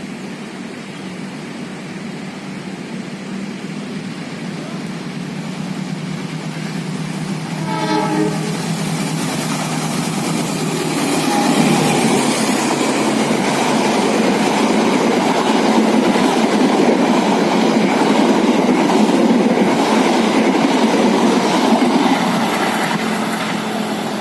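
Manahan passenger train approaching slowly and passing close by, its horn sounding once briefly about eight seconds in. The rumble of the train and its wheels on the rails grows loud from about eleven seconds and eases off near the end.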